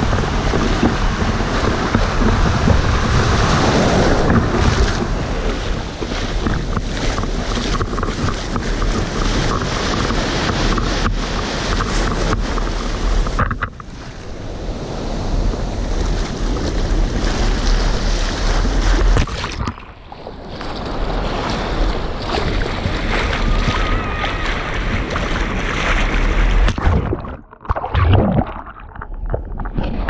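Sea waves washing, with wind buffeting the microphone: a loud, steady rush of noise with a deep rumble, dipping briefly a couple of times and turning choppy near the end.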